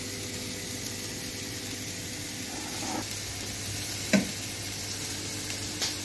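Steady sizzling of food cooking on a hot stove as a raw paratha sits on an iron tawa, with one sharp knock about four seconds in and a lighter click near the end.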